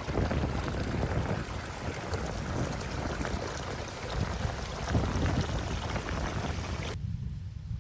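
Wind buffeting the microphone, with a steady hiss of rain or rushing water over it. About seven seconds in, the hiss cuts off suddenly and only the low wind rumble remains.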